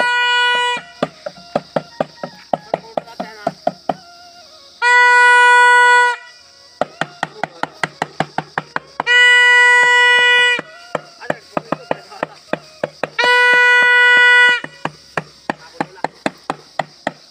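A plastic toy trumpet blown in long steady blasts about every four seconds. In between, a stick is beaten on a plate like a drum in quick regular taps, about four a second.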